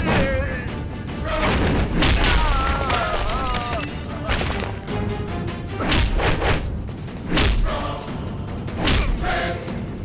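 Film fight-scene soundtrack: dramatic background score with heavy punch and impact sound effects landing every second or two, and a wavering vocal cry about two seconds in.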